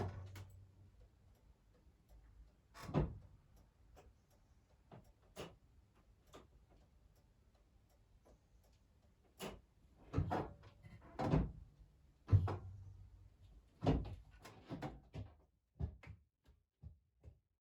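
Irregular knocks and clunks, about a dozen, the sharpest and loudest right at the start; they come closer together near the end.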